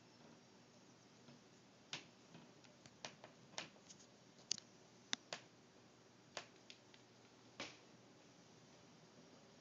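About a dozen irregular sharp knocks and clicks over quiet room tone, some single and some in quick pairs, the loudest about halfway through. This is noise coming from a neighbouring apartment.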